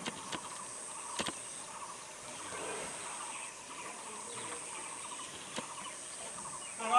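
Forest ambience: a steady, faint, high-pitched insect hum, broken by a few short, faint clicks or snaps.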